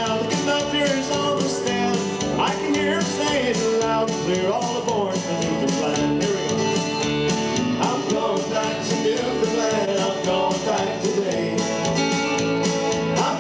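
Live country-style music from an acoustic guitar and a bass guitar, with a steady strummed beat and no sung words.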